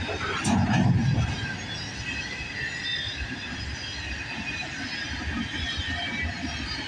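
Freight cars of a CN train rolling past on steel rails, a steady rumble of wheels on track with short high wheel squeals. A louder clank about half a second in.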